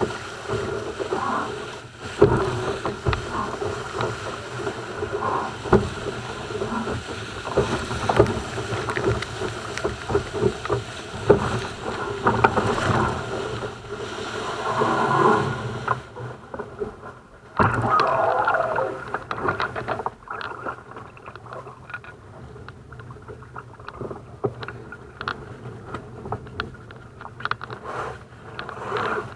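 An RS700 sailing skiff moving fast: water rushing and splashing against the hull. A little past halfway there is a loud burst of splashing as the boat capsizes, then only quieter water sloshing around the hull as it lies on its side.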